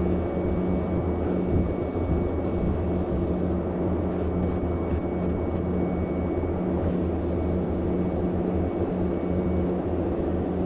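Sandblaster running continuously: a steady rush of compressed air and abrasive over a low hum.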